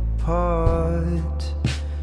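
Background music: a slow song with a constant deep bass under long held melodic notes, a new note coming in about a third of a second in.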